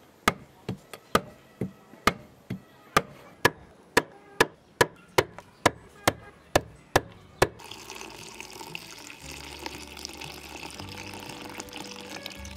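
Cleaver chopping dried fish on a wooden board: sharp chops about two a second. About seven and a half seconds in the chopping stops and water pours into a pan of the chopped fish.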